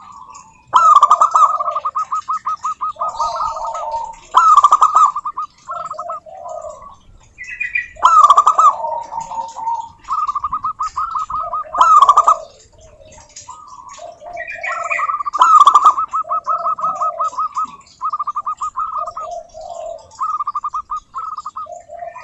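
Zebra dove (perkutut) singing: phrases of rapid, staccato cooing notes, each phrase opening with a loud note and repeating every three to four seconds.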